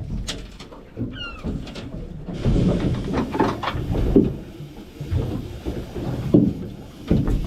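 A gull gives a short falling cry about a second in, over an uneven low rumble with scattered knocks from the boat and water.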